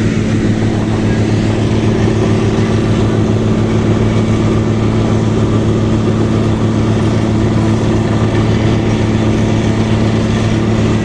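Hydraulic vibratory pile driver (vibro-hammer) running on a steel pile, with a loud, steady, heavy hum and a fast, even shaking throb underneath.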